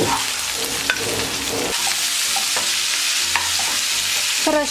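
Chicken and garlic scapes frying in oil in a pan, a steady sizzle, while a spatula stirs them with light scraping against the pan.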